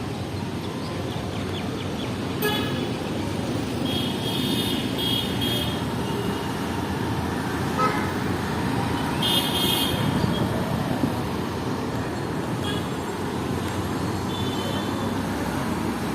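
City street traffic running steadily, with vehicle horns tooting in short blasts several times.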